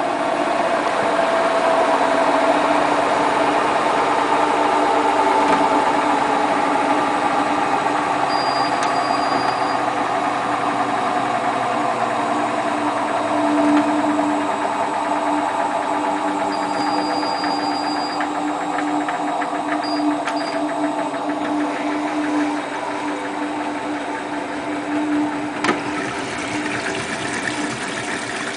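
Hotpoint Ultima WT960 washing machine spinning a load of mats: a steady motor hum whose pitch drifts slowly lower, with a sharp click near the end.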